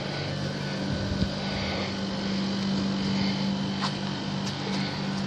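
Steady machine hum with a constant low drone, and a small click about four seconds in.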